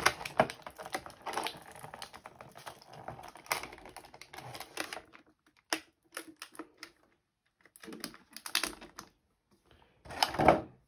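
Clear plastic blister packaging crackling and clicking as small toy figures are pressed out of it and handled. A dense run of crinkles comes first, then scattered clicks with short pauses, and a louder crackle near the end.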